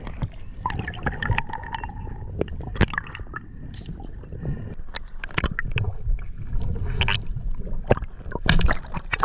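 Water sloshing and gurgling around a camera held underwater, muffled, with a constant low rumble and many scattered sharp clicks and knocks.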